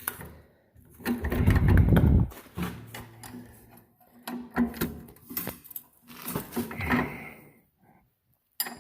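Workshop handling noise: a loud low rumble about a second in, then scattered knocks and clatter of tools and metal parts.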